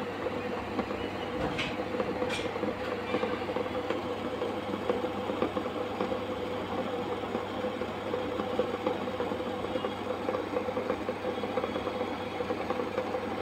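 Water at a rolling boil in a steel pot, bubbling and crackling steadily over a low, even hum. Two light clicks come about two seconds in.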